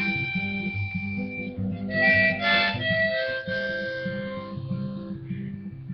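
Harmonica in a neck rack played over strummed acoustic guitar: held harmonica notes above a steady strum, busiest a couple of seconds in and thinning out near the end.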